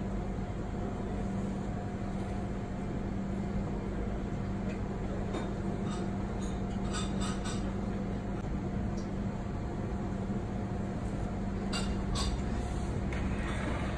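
Steady machine hum of commercial kitchen equipment, with a few light clinks of ceramic dishes, mostly around the middle and again near the end.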